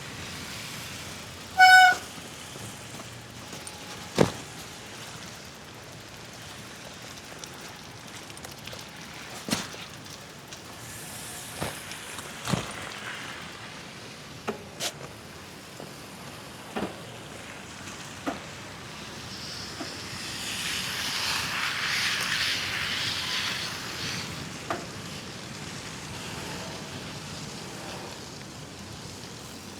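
Bicycle riding on wet, slushy pavement after a snowstorm: a steady hiss with scattered knocks and rattles as the bike goes over bumps. A brief, loud pitched tone sounds about two seconds in, and the hiss swells louder for a few seconds past the middle.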